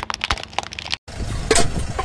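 Hard plastic toy cracking and clicking under a car tyre; after a short break, the car running with a loud crunch about a second and a half in as an aluminium drink can starts to buckle under the tyre.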